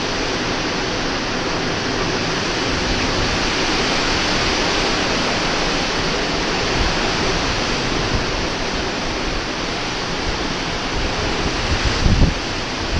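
Hurricane wind blowing as a steady, dense rush of noise, with gusts buffeting the microphone in low thumps near the end.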